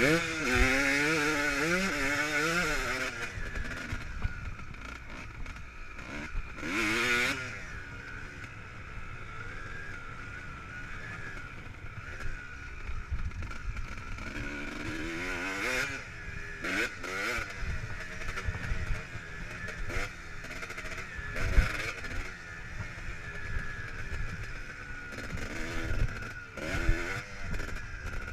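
Kawasaki KX250 dirt bike engine being ridden, revving up and falling back in pitch in repeated bursts of throttle, with quieter steady running and a rushing noise in between. A few sharp knocks come from the bike over the rough ground, the loudest one a little past two-thirds of the way through.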